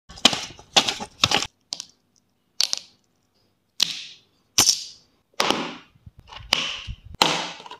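A series of about ten sharp plastic clacks and taps, spaced irregularly, from stationery being handled and set down on a table: a plastic stencil ruler and a plastic box of twin-tip markers.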